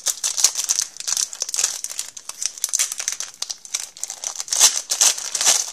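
Foil wrapper of a hockey card pack crinkling in the hands: a dense run of sharp crinkles with no pause.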